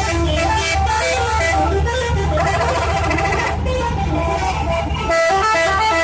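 Bus telolet horn, a multi-note musical bus horn, playing quick runs of short notes that step up and down, with a brief break about halfway. The bus engine runs steadily underneath.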